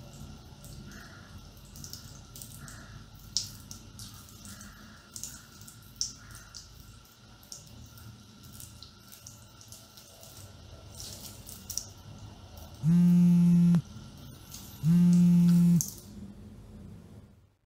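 Scattered drips and small clicks in a tiled shower room, then two loud, steady buzzes, each just under a second long and about two seconds apart, near the end: a mobile phone vibrating.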